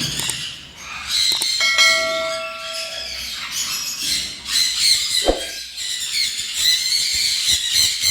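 Many small cage birds chirping and chattering together in an aviary. About a second and a half in, a steady tone is held for about a second and a half, and a single thump comes near the middle.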